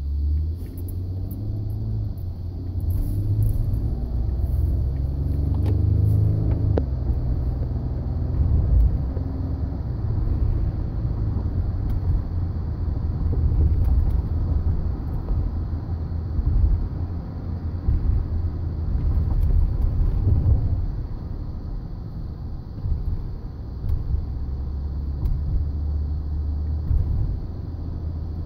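Ford F-150 pickup truck running, a loud, uneven low rumble.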